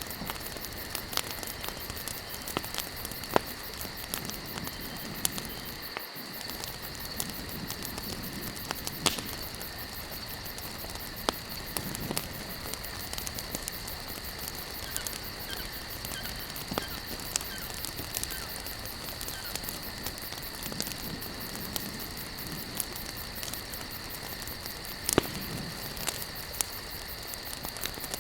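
Wood campfire crackling, with frequent sharp pops and a few louder snaps over a steady hiss, and a steady high-pitched drone in the background.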